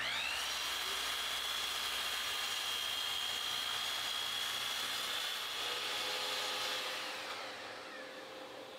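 Sliding compound miter saw spinning up with a quick rising whine, then running steadily on one high tone while crosscutting a cherry board to length. It winds down over the last couple of seconds.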